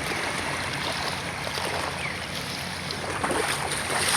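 Steady outdoor wind and water noise over salt water, with no distinct events.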